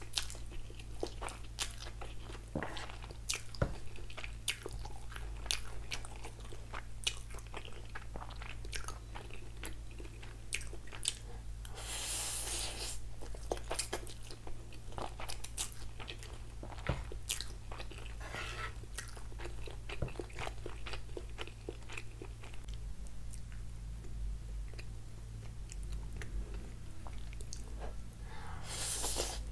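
Close-miked eating of atta Maggi noodles: wet chewing with many sharp mouth clicks. There are two longer slurps, about twelve seconds in and near the end.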